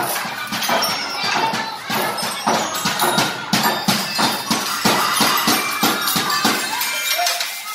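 Music with a steady, fast percussion beat, fading out near the end.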